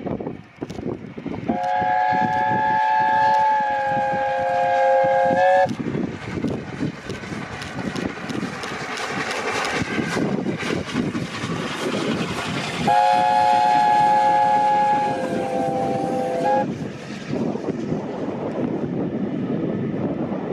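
Streamlined LNER A4 Pacific steam locomotive passing at speed with its train, sounding its three-note chime whistle in two long blasts of about four seconds each. The second blast drops in pitch partway through as the engine goes by. Between and after the blasts come the exhaust and the clatter of the coaches' wheels passing.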